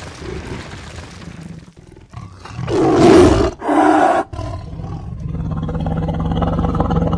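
A loud roar in two parts, like a big cat's roar, about three seconds in, followed by a steady low drone.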